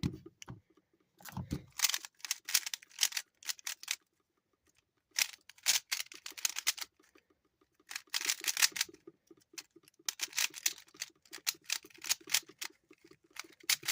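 Stiff plastic 3x3 puzzle cube being turned quickly, its layers clicking and clacking in fast runs of a second or more with brief pauses between. The cube is stiff and hard to turn.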